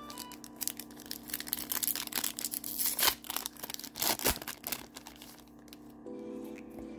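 Foil wrapper of a Yu-Gi-Oh! booster pack being torn open and crinkled by hand, a dense crackling that dies down about five seconds in as the cards come out.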